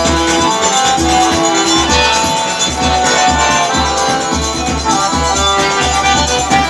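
Live forró band playing an instrumental passage with a steady bass beat and held melody notes.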